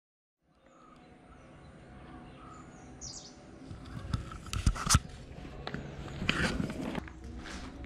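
Outdoor ambience fading in after a brief silence, with birds chirping and a few sharp knocks about four to five seconds in, the loudest moments.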